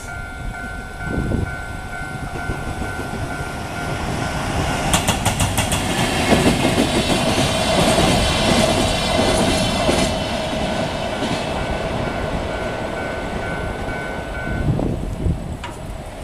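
Japanese level-crossing alarm ringing steadily while a freight train of hopper wagons rolls through the crossing, its wheels clattering over the rail joints. The train is loudest about five to ten seconds in, and the alarm stops near the end.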